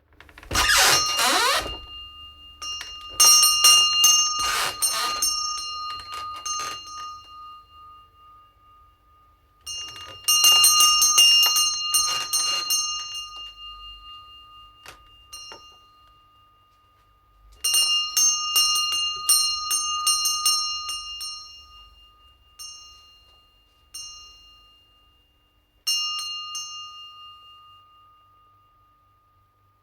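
A door squeaks open at the start, and a shop-door bell jangles in four rounds of quick strikes, each ringing out and fading away.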